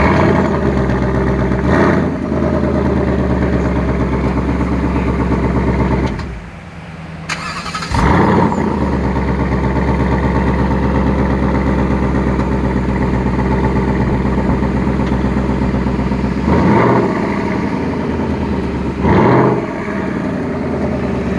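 Ford Mustang's 5.0 Coyote V8 starting with a flare of revs and settling to a loud, steady idle with a short blip of the throttle. About six seconds in it cuts out and is restarted with another flare about two seconds later, then idles with two more short revs near the end.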